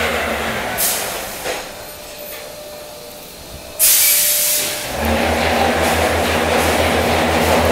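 Block-factory machinery running with a low drone and an even pulsing beat. The drone fades away in the first couple of seconds. A loud hiss of about a second comes near the middle, and then the drone returns, louder.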